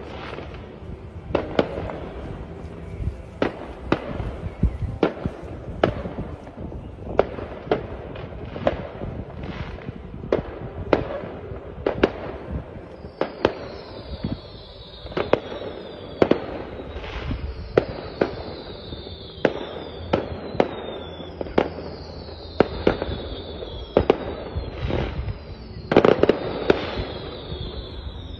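Fireworks display: a steady run of sharp bangs, one or two a second, with a cluster of the loudest bangs near the end. From about halfway, high whistles that fall in pitch repeat alongside the bangs.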